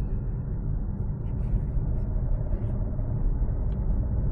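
Steady low rumble of road and drivetrain noise heard inside the cabin of a 2025 MG HS SUV on the move.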